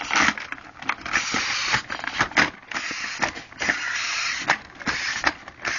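Hard plastic parts of a 1986 Coleco Starmax Bomber toy spaceship being handled: an irregular run of clicks and knocks with short scraping rattles.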